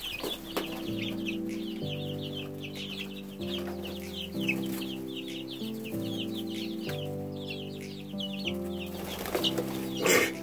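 A flock of three-week-old chicks peeping without a break, with short, high, falling peeps several a second, over background music with slow chord changes. A single sharp knock comes near the end.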